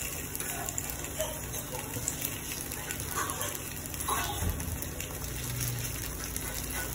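Corn appe batter balls sizzling in oil in a cast-iron appe pan, a steady crackling hiss, while they are turned over with forks to brown the other side, with occasional light scrapes of the forks in the pan.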